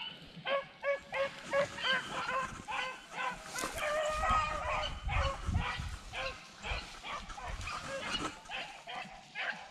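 A pack of beagles baying as they run a rabbit's trail: a rapid string of short yelping bays, two or three a second, with one longer drawn-out bay about four seconds in.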